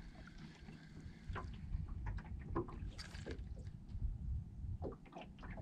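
Low, steady wind noise on the microphone and water lapping against a boat hull, with scattered short clicks and splashes, a cluster about three seconds in and more near the end.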